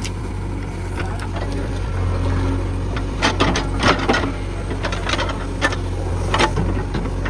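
JCB 3DX backhoe loader's diesel engine running steadily under work, with a run of sharp knocks and clatters in the middle.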